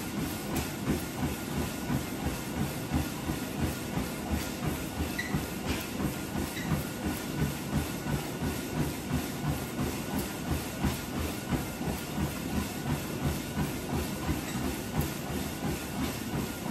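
Treadmill running under a person at exercise pace: footfalls thud on the moving belt in a steady, even rhythm over the continuous whir of the belt and motor.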